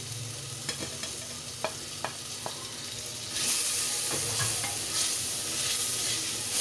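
Tomato-and-onion masala frying in oil in a clay pot, sizzling, while spice powders go in and a wooden spoon taps a few times against the pot. About three seconds in the sizzle turns louder as the spices are stirred through the hot oil.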